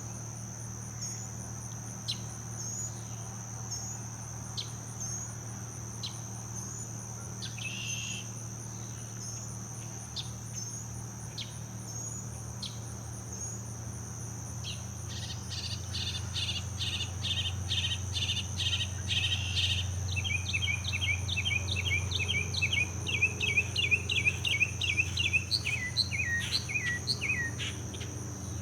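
A steady high insect trill, with short spaced chirps at first and then, from about halfway, a bird singing loudly over it: runs of rapidly repeated notes, each pattern kept up for a few seconds before it switches to another. The song is taken for a northern mockingbird's.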